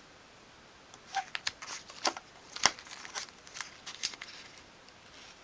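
Paper masking tape crackling in a run of small, irregular clicks as it is pulled taut over a small wooden table top and pressed down underneath, beginning about a second in.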